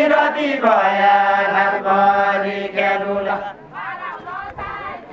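A group of men singing a deuda folk song together, unaccompanied, in long drawn-out phrases with held notes. About three and a half seconds in the singing stops and quieter voices follow.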